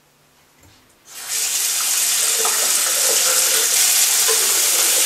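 Bathroom tap turned on about a second in, water running steadily into the sink as it is used to wash and refresh the face.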